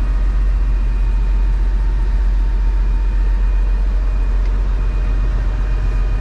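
Boat's inboard engine running steadily under way, heard from inside the wheelhouse as an even, deep drone.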